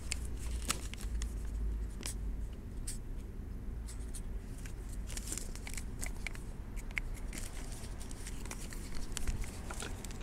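Scattered small clicks and rustles of hands uncapping a Sharpie marker, writing measurements on a paper card and capping the marker again, over a low steady rumble.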